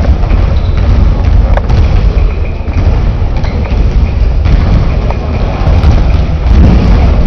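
Loud, steady low rumble with a couple of faint knocks.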